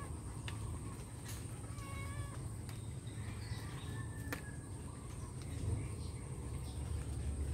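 A cat meowing a few short times in the background, over a steady low rumble and a thin, steady high whine.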